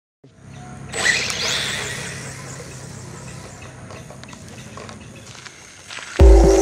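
Small brushless RC stadium truck's electric motor whining up as it pulls away about a second in, then running on with a steady noisy tyre-and-drivetrain sound. Near the end, loud music with a heavy beat cuts in.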